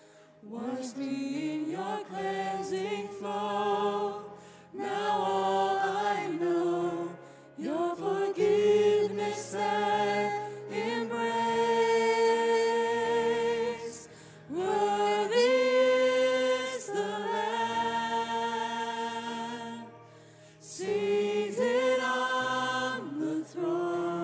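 Several voices singing a slow worship song together, with long held notes in phrases broken by short pauses.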